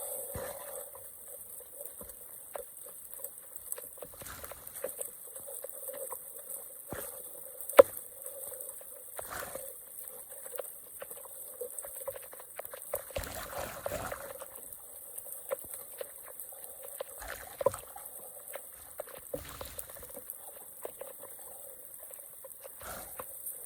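Water trickling and pouring, with scattered small splashes and clicks and one sharp knock about eight seconds in.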